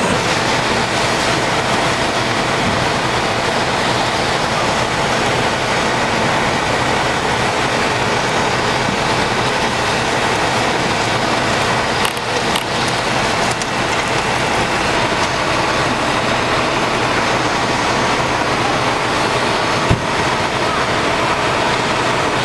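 Fire truck's engine running steadily at pumping speed, a constant drone, with two brief knocks about halfway and near the end.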